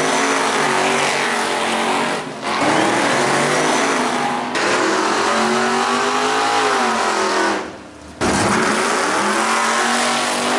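Drag-racing cars accelerating hard, engines revving in rising sweeps. The sound drops out briefly about two, four and a half and eight seconds in.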